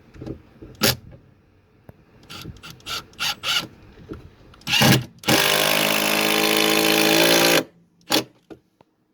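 Power drill running for about two seconds with a steady whine, driving a screw to join the speaker boxes. A few sharp knocks and clicks of handling come before it, and one more follows.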